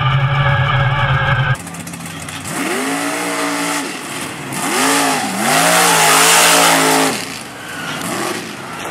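A 1200 hp mega mud truck's engine: a steady low drone inside the cab for about a second and a half, then, heard from outside, the engine revving up and down several times as the truck drives through mud. A loud rushing noise peaks with the revs near the middle, then fades.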